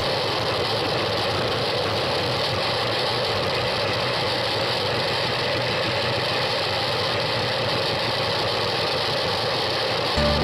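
Steady rush of wind and tyre noise picked up by a camera riding on a road bike at speed in a group of cyclists, even and unchanging throughout.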